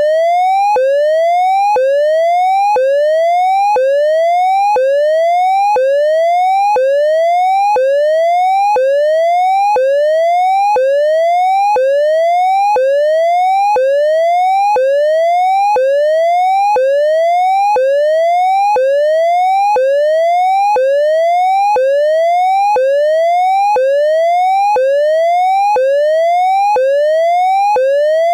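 Synthesized triangle-wave siren imitating the Hazard tone of an ASC digital electronic siren controller. It is a steady pure tone whose pitch rises and then snaps back down about once a second, over and over.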